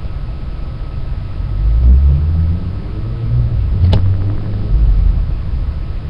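Low rumbling noise that swells and fades a few times, with one sharp click a little before four seconds in and a faint steady high tone underneath.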